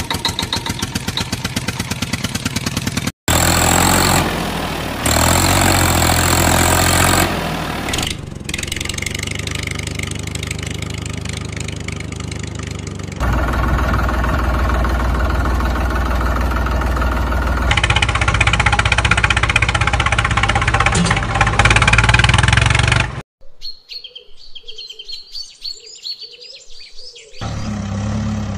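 Vehicle engines idling and running, in several segments that cut abruptly one into the next. A few seconds of birds chirping near the end, before the engine sound returns.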